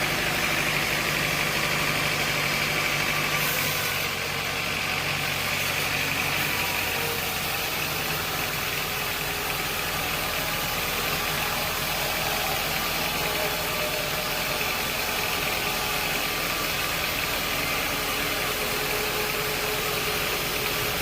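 Engine running steadily at a constant speed, with a slight drop in level about four seconds in.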